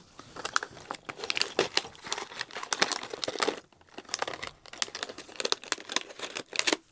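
Packaging crinkling and rustling as it is handled, a dense run of irregular crackles with a short pause a little past halfway.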